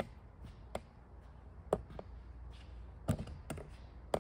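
Slow footsteps on a concrete floor, a light tap about once a second, over a low steady hum.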